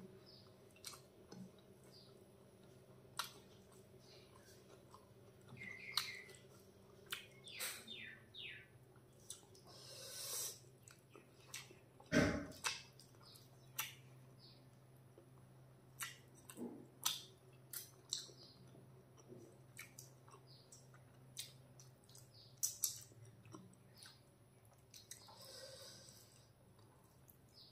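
Close-miked mouth sounds of eating rice and chicken by hand: irregular wet chewing, lip smacks and small clicks. There is one louder thump about halfway through.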